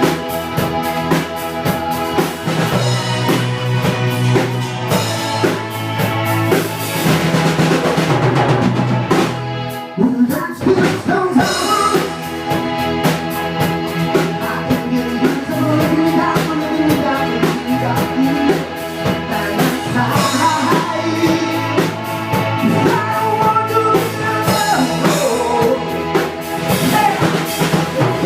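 Band music with a full drum kit under layered sustained chords and a wavering lead melody line; the music thins out for a moment about ten seconds in, then carries on.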